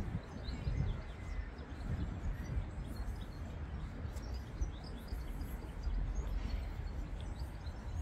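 Outdoor park ambience: small birds chirping here and there over a steady low rumble.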